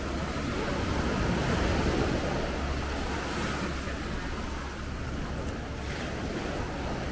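Sea waves washing in, swelling louder about two seconds in, with wind rumbling on the microphone.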